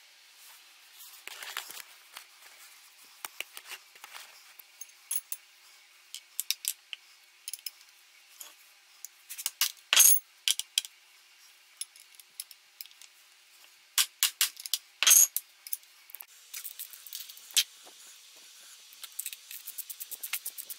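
Metal hand tools and engine parts clinking and clanking against a motorcycle engine's aluminium crankcase during disassembly. There are two louder metal-on-metal strikes that ring, about ten and fifteen seconds in, and a fast run of light clicks near the end.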